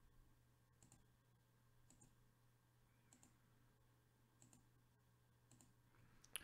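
Faint computer mouse clicks, about one a second, six in all, as the randomize button is clicked again and again; the last click near the end is the sharpest.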